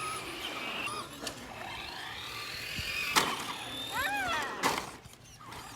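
Traxxas radio-controlled car's electric motor whining up in pitch as the car speeds up, with a sharp knock about three seconds in.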